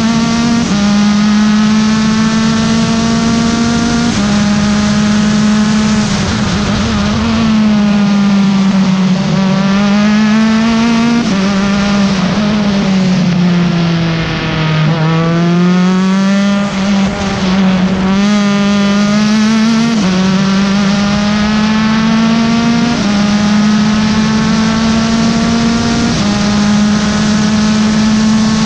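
USF2000 open-wheel race car's four-cylinder engine at racing speed, heard from the cockpit. Its pitch climbs and then drops sharply at each upshift. In the middle it falls through several downshifts to its lowest point for a corner, then climbs again through a run of upshifts.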